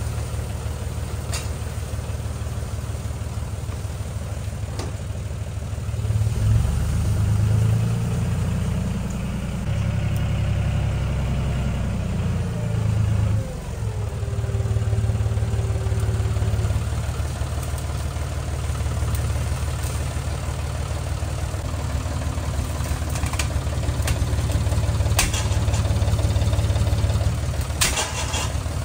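John Deere 5300 tractor's three-cylinder diesel engine running under load while it pulls shrubs out by the roots. It gets louder about six seconds in, drops briefly a little before halfway, then runs steadily on.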